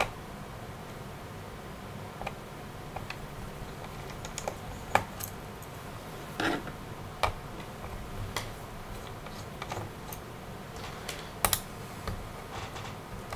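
A small screwdriver working the optical drive's retaining screws out of a laptop's plastic base: scattered, irregular light clicks and taps.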